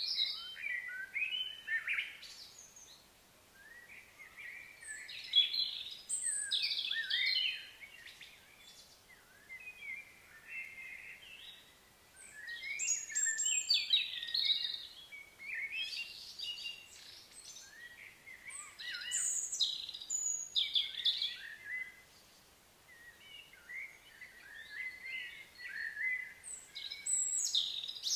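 Birds singing and chirping in bouts of a few seconds, with quieter gaps between, over a faint steady outdoor background.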